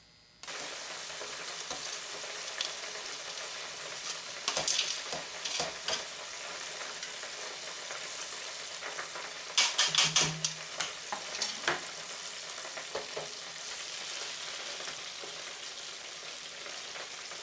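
Sliced hog testicles frying in hot oil in an electric deep fryer: a steady sizzle that starts suddenly about half a second in. It carries a scatter of sharper clicks and crackles, heaviest about five and ten seconds in.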